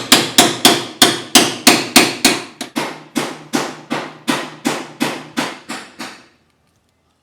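Hammer blows on car-body sheet metal, a steady run of sharp ringing strikes about three a second, stopping about six seconds in.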